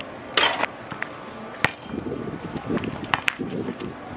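Basketball play on an outdoor court: a short scuff near the start, then sharp knocks of the ball on the hoop and the hard court, one about a second and a half in and two close together just after three seconds.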